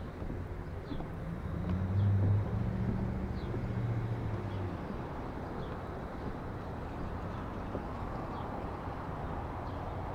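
Outdoor street ambience: a vehicle engine hums low for a few seconds, loudest about two seconds in, then fades. Small bird chirps repeat about once a second throughout.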